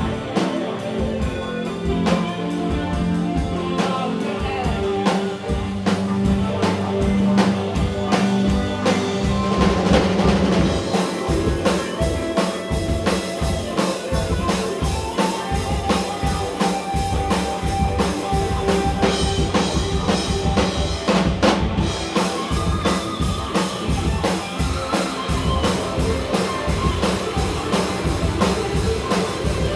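Live band playing, with a drum kit keeping a steady beat under sustained instrument tones.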